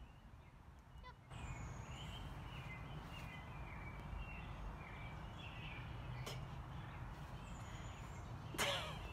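Birds chirping and singing in the background over a steady low outdoor rumble, with two high falling whistles and a brief louder noise near the end.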